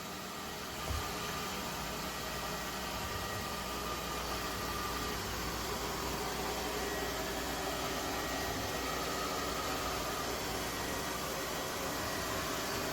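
Lefant M210 Pro robot vacuum running: a steady motor and suction noise with a faint wavering whine, and a light knock about a second in.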